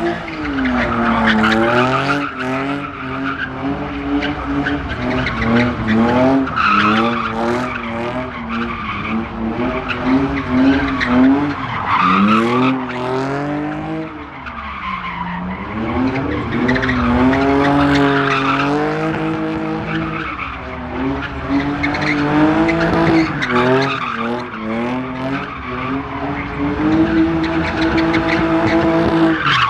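Car drifting: the engine revs hard, its pitch rising and falling over and over, while the tyres squeal and skid.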